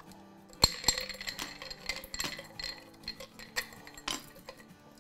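Reusable plastic-shelled ice cubes clinking as they are tipped from a plastic container into a glass bowl of sharbat, knocking against the glass and a metal ladle. A sharp clink comes about half a second in, followed by scattered lighter clinks.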